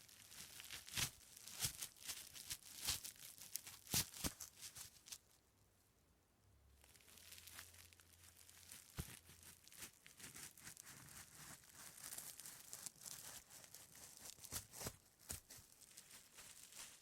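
Rope being stretched and moved, giving dry, irregular creaks and crackles. About five seconds in they stop for a second and a half, then resume.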